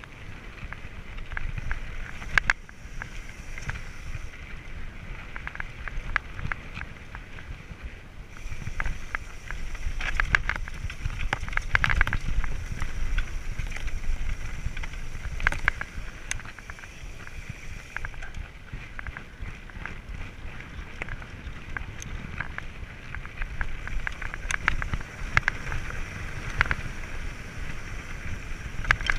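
Mountain bike riding fast down a dirt and stony trail: wind rumbling over the microphone, tyres crunching on loose ground, and the bike clattering with many short knocks over bumps.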